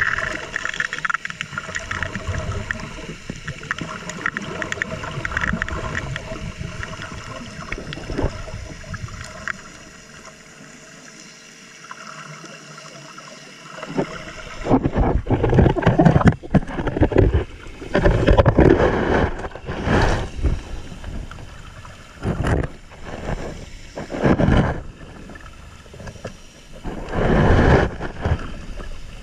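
Underwater sound of gold dredging: a steady wash of water noise with a faint machine hum from the suction dredge. About halfway through, a series of loud rushing, bubbling bursts begins, each a second or two long, from the diver's exhaled air and water rushing close to the camera.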